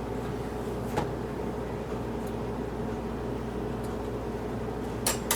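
Steady mechanical hum of a machine running, made of several fixed tones, with a single light click about a second in and two quick clicks near the end.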